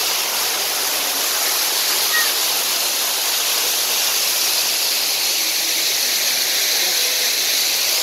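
Steady rush of water falling down an artificial park waterfall over a sculpted rock wall.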